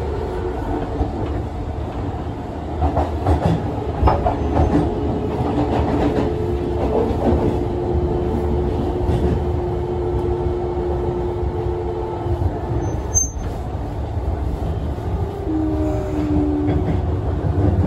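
Fukuoka City Subway 1000 series train running, heard from inside the car: a steady low rumble of wheels on track with a few held tones over it, briefly dipping about 13 seconds in.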